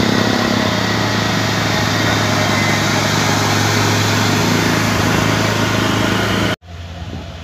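Heavy cargo truck's diesel engine running loud and steady with a deep hum as the truck drives past close by. The sound cuts off abruptly near the end, leaving a quieter, more distant engine hum.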